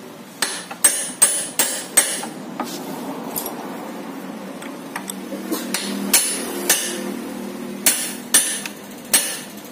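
Hammer blows on a steel drift, driving the new pivot pin into an LML Vespa's front suspension hub, metal on metal. There is a quick run of about five sharp, ringing strikes in the first two seconds, then a few lighter taps, then another run of strikes in the second half.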